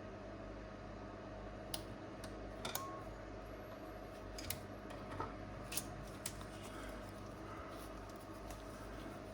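About seven small, sharp clicks and ticks from hands handling laptop screen parts, scattered over a few seconds, over a steady low room hum.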